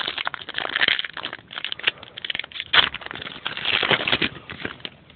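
Crinkling and rustling of a trading card pack wrapper and cards being handled close to the microphone, in quick, irregular crackles.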